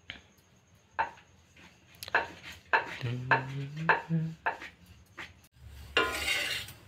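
A kitchen knife knocking and scraping on a stone board as rolled dough is cut, a string of sharp knocks, with a short low hum about three seconds in. Near the end, a paratha frying in oil in a pan sizzles briefly.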